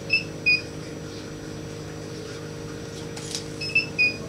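Short high-pitched electronic beeps: two pips about a third of a second apart near the start and a few more in quick succession near the end, over a steady low electrical hum.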